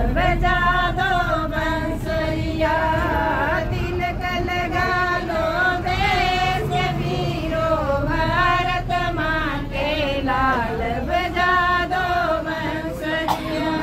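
A female voice singing a melody, held notes bending up and down, with a choir-like quality.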